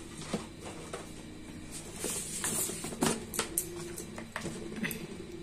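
Light scattered clicks and taps from spice containers and a plastic measuring spoon being handled, over a faint steady hum.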